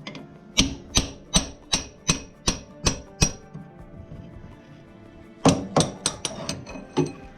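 Hammer blows on the steel rear axle of a Ural motorcycle, driving it out of the wheel: eight strikes at about two and a half a second, a pause, then a quicker run of about seven more near the end. Background music runs underneath.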